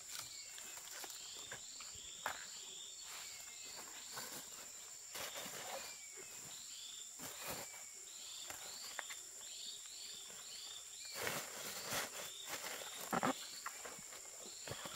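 Outdoor countryside ambience: insects keep up a steady high-pitched drone, short chirping calls repeat about twice a second, and scattered clicks and rustling knocks come and go.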